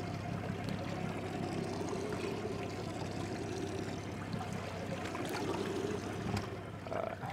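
Water sloshing and trickling against a boat's hull over the steady low hum of a Suzuki 300 outboard idling in gear, with a couple of light knocks in the second half.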